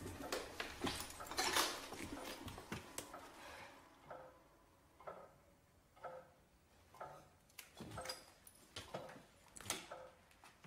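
Slow footsteps and wooden creaks on old stairs and floorboards: soft, irregular knocks about one every half-second to a second, the loudest about one and a half seconds in.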